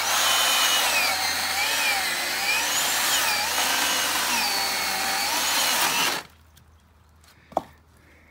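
Stihl MSE 170 C electric chainsaw cutting through a firewood log, its whine wavering up and down with the load. It stops abruptly about six seconds in.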